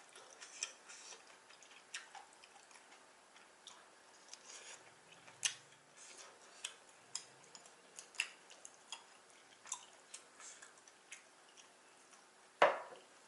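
Close-miked mouth sounds of someone eating jajangmyeon: soft, irregular wet clicks and smacks of chewing, with one louder sharp sound near the end.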